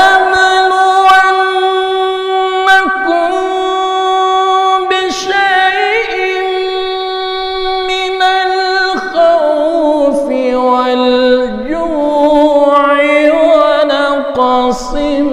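A man's solo voice reciting the Quran in the melodic tilawah style: one long high note held for about nine seconds, then sliding down into ornamented runs at a lower pitch.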